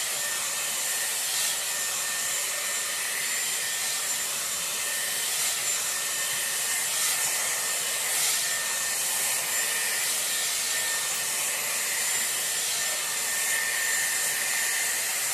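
Dyson Airwrap running with its round volumising brush attachment, a steady rush of blown air with a thin high whine from the motor.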